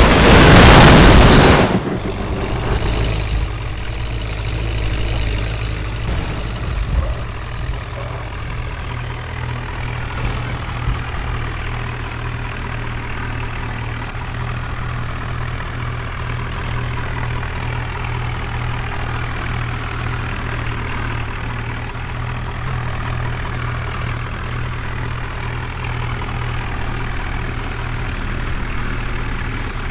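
A very loud noise that cuts off about two seconds in, then a heavy diesel engine running steadily at idle.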